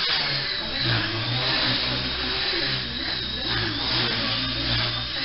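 Walkera Super CP micro RC helicopter's small electric motor and rotor running: a high whine over a lower buzz, both wavering slightly in pitch as the throttle shifts.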